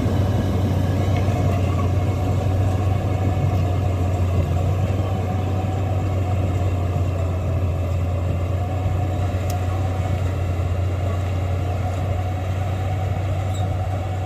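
Caterpillar D8 bulldozer's diesel engine running steadily under load, with a deep even drone.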